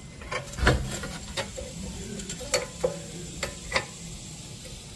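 Small metal parts clicking and tapping irregularly, a washer and nut being handled and fitted onto a bolt, with the strongest knock about a second in.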